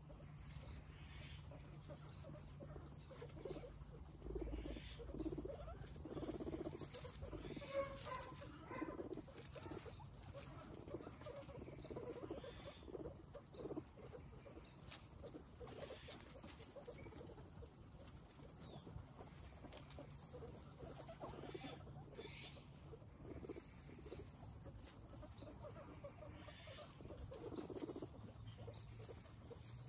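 A herd of guinea pigs eating fresh grass and carrot slices: faint, irregular munching and rustling in the straw.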